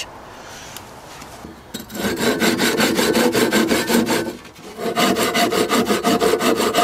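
Japanese pull saw cutting through a wooden batten by hand, with fast, even strokes starting about two seconds in, a brief pause just past the middle, then sawing again. The cutting is slow, as a fine-toothed saw meant for straight, fine cuts is.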